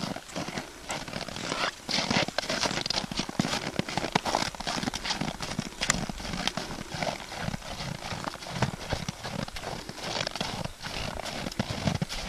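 Hoofbeats of a ridden American Paint Horse trotting on snow: many short footfalls in quick, uneven succession.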